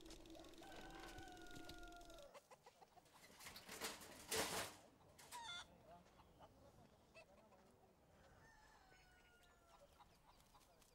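Rooster crowing: a long, slightly falling call near the start and again about eight seconds in. A short, loud squawk comes between the two. A low steady hum cuts off about two seconds in.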